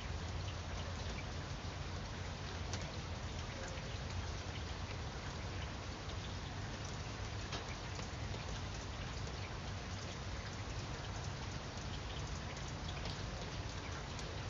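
Steady rain falling on leafy foliage, with many small, scattered drop ticks over a low, steady rumble.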